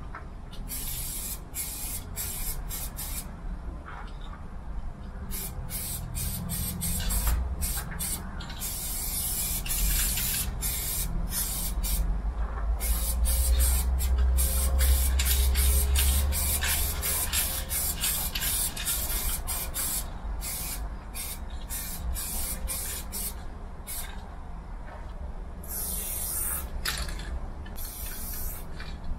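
Aerosol spray-paint cans hissing in many bursts, some short and quick, some long unbroken strokes, with a longer spell of steady spraying in the middle. A low rumble runs underneath and swells about halfway through.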